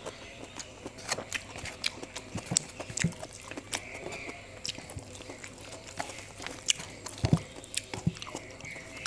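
Chewing and lip smacking of a mouthful of rice and side dishes eaten by hand, with fingers picking food off a stainless steel tray: irregular wet clicks, the loudest a low thud about seven seconds in.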